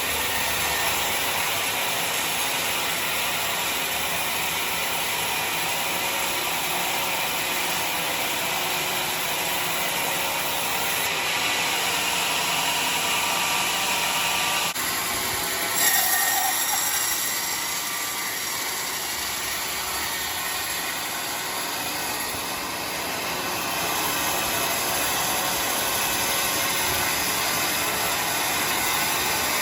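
Sawmill sawing machinery running with a steady, dense mechanical clatter and hiss, with a brief louder surge about sixteen seconds in.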